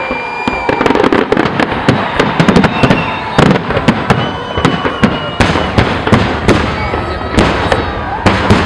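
Aerial fireworks display: a dense, rapid run of sharp bangs and crackling shell bursts, one after another, starting about half a second in.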